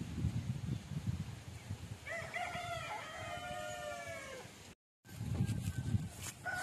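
A rooster crows once, a long drawn-out call in several parts starting about two seconds in, over a low rumbling background; the sound drops out briefly near the end.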